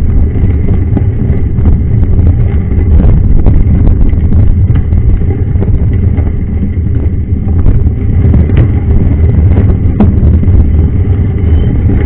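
Mountain bike rolling over a gravel road, heard through a camera mounted on the bike: a loud, steady low rumble of tyre and frame vibration with scattered short clicks from stones and the bike's parts.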